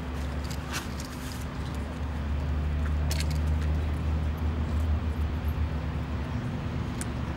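A vehicle engine idling steadily, its low hum swelling louder in the middle, with a few light metallic clinks from climbing gear being buckled on.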